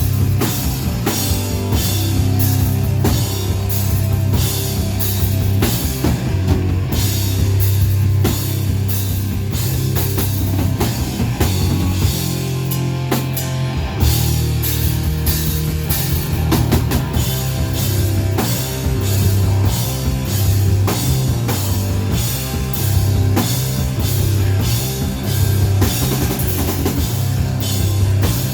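Heavy rock music: a drum kit keeping a steady driving beat over a heavy bass line, loud throughout.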